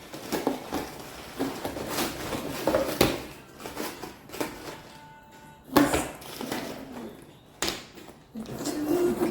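A handbag pouch being handled: scattered sharp clicks and knocks from its hardware, with rustling of the bag between them.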